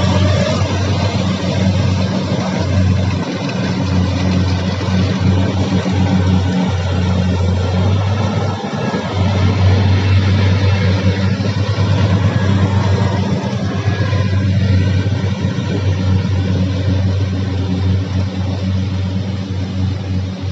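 Combine harvester's diesel engine running steadily at working speed, a loud, even drone with noise from the machine over it.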